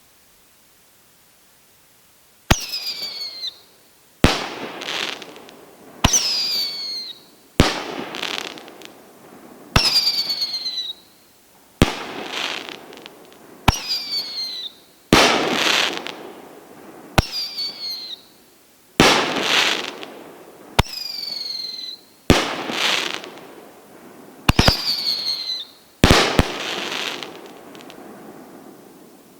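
Shelton's Voodoo, a 9-shot 500-gram consumer firework cake, firing its shots. A couple of seconds in, sharp bangs start and come about every two seconds. Many carry a whistle falling in pitch, and the breaks give off long crackling.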